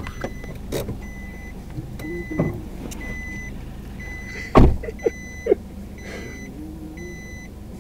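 A car's warning chime beeping steadily, once a second, each beep about half a second long. About four and a half seconds in there is one heavy thump, the loudest sound, followed by a couple of lighter knocks.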